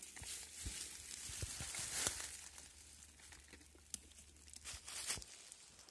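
Dry fallen leaves rustling and crackling as they are stepped on and pushed about by hand, in uneven bursts with a quieter stretch in the middle.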